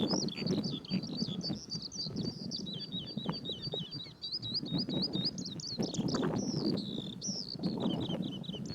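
Skylark singing: a long, unbroken stream of rapid, high warbling and trilling notes with no pause.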